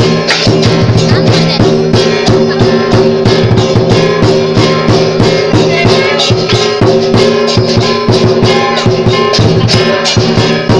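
Loud lion dance music: rapid, driving percussion with clashing cymbals and drumming over sustained tones, with no break.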